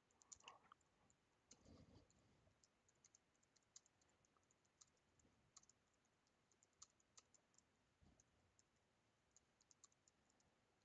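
Very faint typing on a computer keyboard: scattered light key clicks, irregular, with short pauses between runs.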